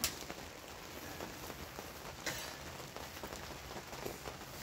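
Water dripping and trickling into a small metal bowl as a cloth soaked in hot water is wrung out over it, with a couple of sharper splashes.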